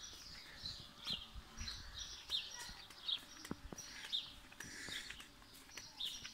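Small birds chirping busily in short, high calls, over and over, with scattered soft knocks of footsteps on a tiled courtyard.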